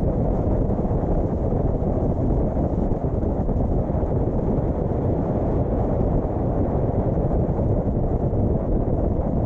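Wind buffeting the microphone of a camera on a moving car, mixed with road noise: a steady, low rush with no distinct events.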